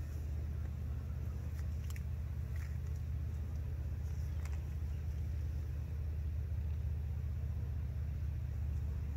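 A steady low rumble, with a few faint clicks about two and four and a half seconds in.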